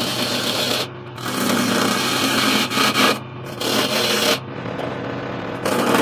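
Hand turning chisel cutting into a pine blank spinning on a wood lathe, a rough scraping rasp over the steady hum of the lathe motor. The cutting comes in spells, breaking off briefly about a second in and near three seconds, and dropping lower for a while past the middle.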